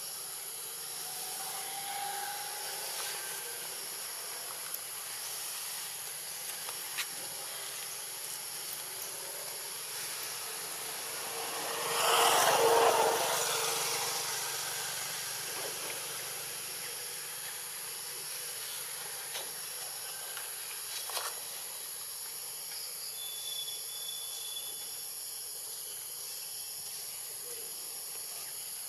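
Outdoor ambience: a steady high hiss, with a louder rushing noise that swells and fades over about three seconds roughly twelve seconds in, and a few faint clicks.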